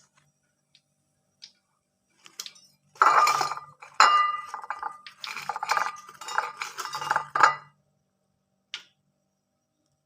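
Kitchen utensils clattering and clinking against cookware, with short ringing tones, in a busy run of about five seconds after a few isolated clicks, and one more click near the end.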